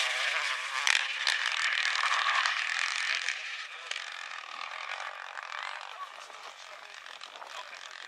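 Renault Clio rally car's engine and tyres on gravel fading as it drives away, with a sharp crack about a second in.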